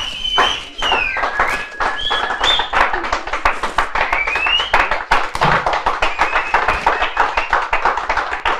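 Continuous clapping by a group of people, dense and steady, with a few high calls rising over it.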